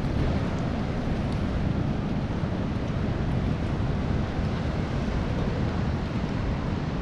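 Wind buffeting the microphone over the steady rush of surf.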